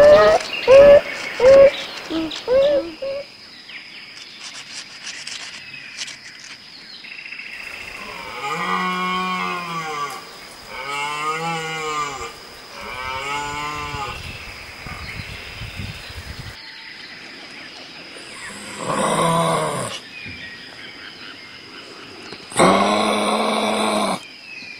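A few short, high, rising squeaks at the start, then a series of deep, drawn-out lowing calls from a large hoofed animal: three in a row in the middle and two harsher ones near the end.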